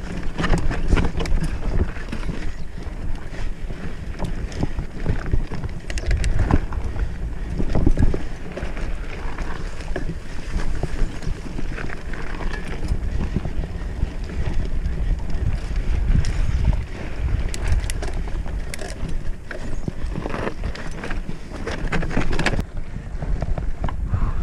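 Wind buffeting the microphone of a handlebar-mounted camera on a moving mountain bike, with the bike rattling and clattering over the bumps and stones of a dirt singletrack.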